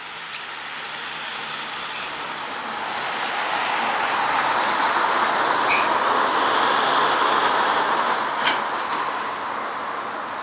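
Road traffic noise of a vehicle passing close by on the street, a tyre-and-engine rush that swells to a peak in the middle and slowly fades, with one sharp click near the end.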